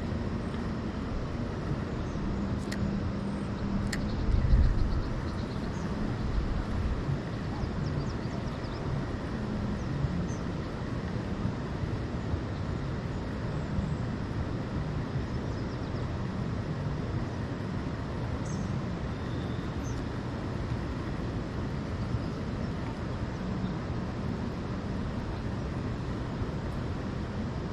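Steady, low rumbling outdoor background noise, with a few faint clicks near the start and a low thump about four and a half seconds in.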